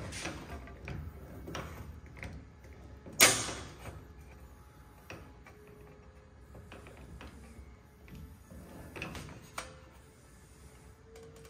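Beverly throatless bench shear cutting sheet metal: an uneven series of sharp cutting strokes as the lever handle is worked, the loudest about three seconds in.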